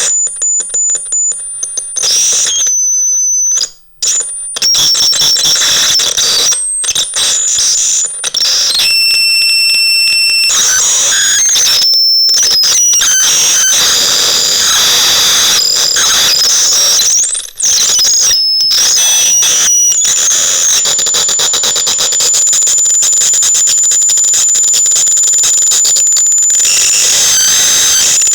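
Psychotron Mini electronic sound device making shrill, alarm-like tones and squeals over hiss, jumping abruptly from one pitch to another, with a few pitch glides. From about 20 seconds in it settles on one steady high tone.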